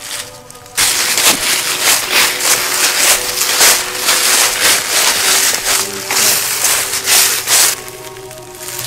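Footsteps crunching and rustling through dry fallen leaves and grass, starting about a second in and going on loud and irregular.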